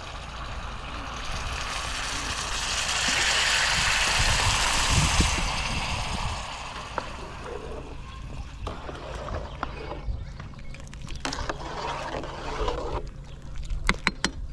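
Water poured from a kettle into a hot pan of fried chicken over a wood fire, sizzling loudly; the hiss builds over the first few seconds and dies away about six seconds in, leaving a few light clicks and knocks.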